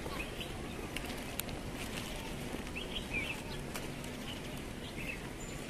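Birds chirping now and then over a steady background of outdoor noise.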